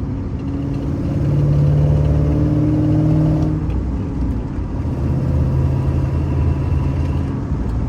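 Cammed GMC Sierra pickup engine pulling under acceleration, its pitch rising for about three seconds, then dropping as it is shifted up through the TR6060 six-speed manual, then pulling steadily in the next gear.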